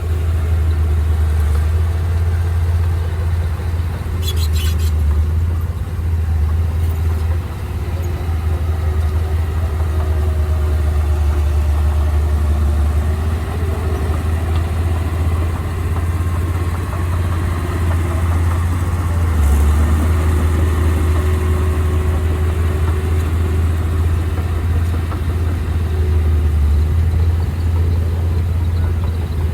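Heavy earthmoving machinery's engine running steadily with a deep low rumble, its pitch wavering slightly, and a short clatter about four seconds in.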